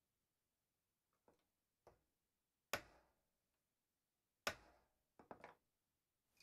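Hand hammer striking a small steel rod held on the anvil of a bench vise, flattening its end: two sharp metal-on-metal blows a little under two seconds apart with a brief ring. Fainter taps come before them, and a quick run of three light taps follows near the end.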